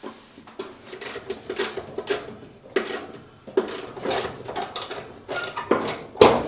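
Socket wrench backing out the 5/16 screw that anchors a dryer's belt tensioner: irregular metallic clicks and knocks, several a second, with a light metallic ring, the loudest strike near the end.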